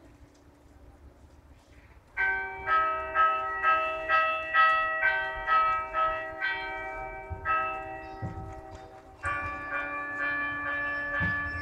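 Church bells begin ringing about two seconds in, struck roughly twice a second with each stroke ringing on into the next; a fuller, louder peal comes in about nine seconds in.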